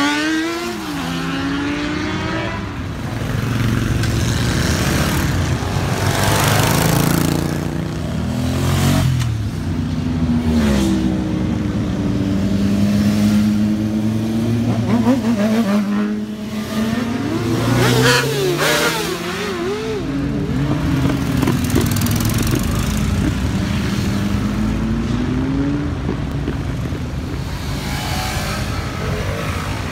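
Motorcycles passing one after another, their engines revving up and falling away as each goes by, with several louder passes over a steady background of engine noise.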